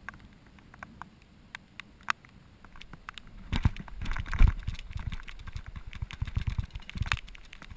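Fishing rod and reel handling as the angler sets the hook on a striking fish: scattered sharp clicks, then from about three and a half seconds in, loud knocks and a low rumble as the rod loads up and the line is cranked in.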